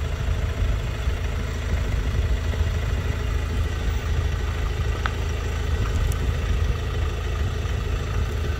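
Ford Ranger pickup's engine running steadily at low revs as the truck, loaded with a cab-over camper, crawls slowly over a rough dirt track.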